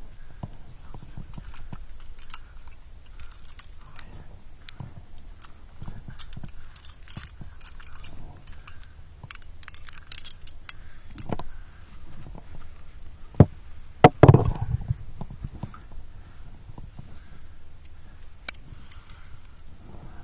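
Climbing gear clinking: carabiners and a quickdraw jangling against each other and the rock as protection is placed and clipped in a crack. Small metallic clicks throughout, with a louder clatter about two-thirds of the way through.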